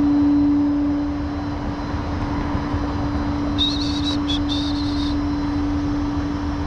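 Steady hum of an idling vehicle engine, with a low rumble under it. A few brief high chirps come about three and a half to five seconds in.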